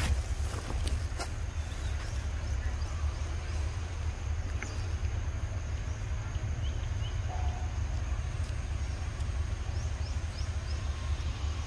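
Outdoor forest ambience dominated by a steady low rumble, with a few light clicks in the first second, a thin steady high hiss, and occasional faint short high chirps.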